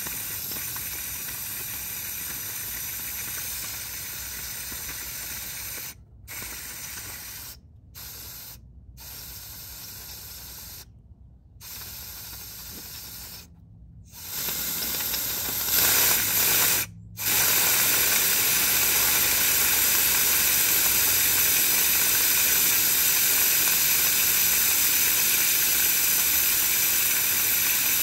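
Compressed-air blow gun blasting air at the scooter's final-drive case, a steady hiss. The trigger is let off for short gaps several times in the first half, then held for a long, louder, unbroken blast.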